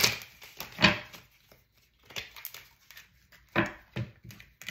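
Tarot cards being handled and drawn from the deck: several short, crisp card snaps and rustles with quiet gaps between.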